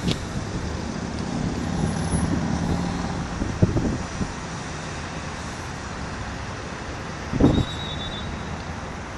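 Steady distant road traffic noise, with a low engine hum in the first few seconds. Two brief low thumps come about a third of the way in and again near the end.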